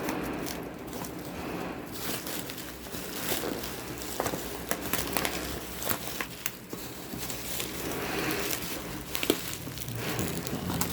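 Packaging crinkling and rustling as a drone's box is worked open by hand, with scattered small clicks and taps.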